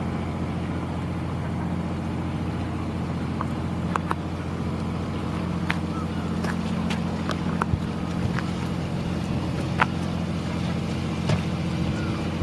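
Boat engine running steadily at a low, even pitch, with a few short sharp clicks over it.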